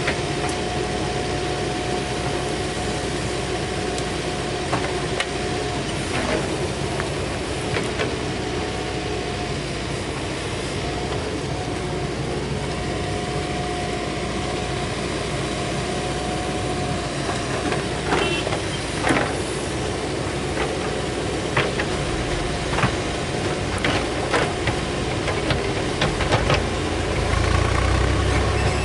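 Diesel engine of a Mahindra backhoe loader running steadily under work, with a steady whine over it and scattered metallic clanks that come more often in the second half. The engine grows louder and deeper near the end.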